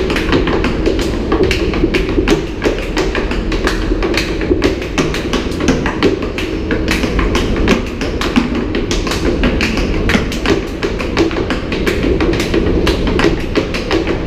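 Two pairs of tap shoes striking portable wooden tap boards in quick, dense rhythmic patterns of sharp clicks, over a steady low background sound.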